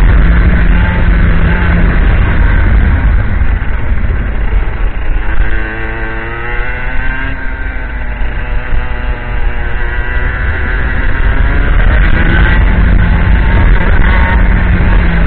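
IAME X30 125cc two-stroke kart engine running at high revs with a buzzy whine. About five seconds in the revs drop and the pitch falls through a corner, then the pitch rises again as the engine pulls back up to full revs.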